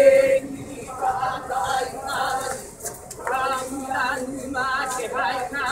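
A voice chanting, most likely a Hawaiian chant (oli), in held, wavering tones broken by short pauses, with a quavering stretch in the second half.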